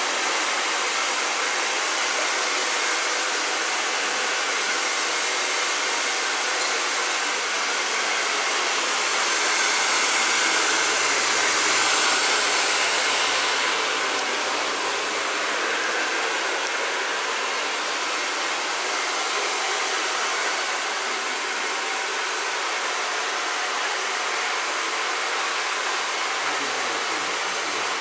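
Handheld hair dryer blowing steadily while a barber dries a man's hair, its rush swelling a little louder for a few seconds near the middle.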